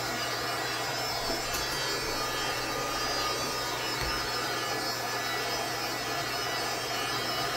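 Heat gun running steadily, its blower making an even whirring rush while it warms the phone's screen to loosen the adhesive.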